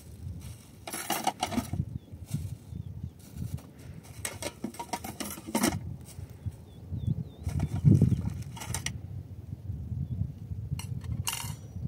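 Dishes and utensils clattering in a plastic basket as they are handled, in several short bursts, the loudest about eight seconds in.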